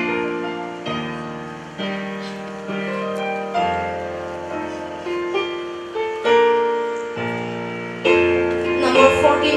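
Electronic keyboard playing slow chords in a piano voice, a new chord struck about every second and left to fade.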